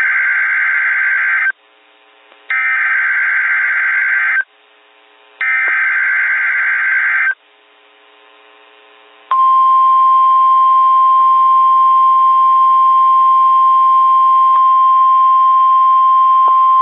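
NOAA Weather Radio Emergency Alert System activation. It opens with three SAME header data bursts, each a harsh buzzing screech about two seconds long with a second's gap between them. About nine seconds in, the steady single-pitch Weather Radio alert tone begins and holds, signalling the severe thunderstorm watch about to be announced.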